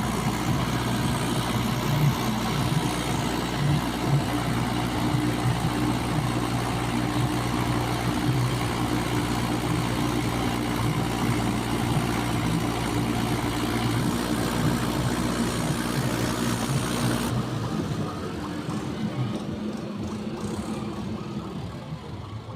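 Heavy diesel engine running steadily. About three quarters of the way through it abruptly drops to a quieter, thinner sound.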